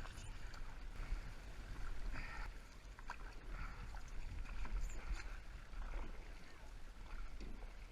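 Canoe paddles dipping and pulling through river water as the canoe moves along, with a steady low rumble and a few light knocks.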